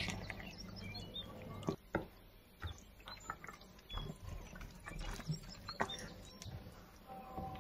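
Wet squelching, smacking and squeaking of gloved hands working a thick marinade into a raw whole chicken in a glass baking dish, in irregular small clicks and short squeaks.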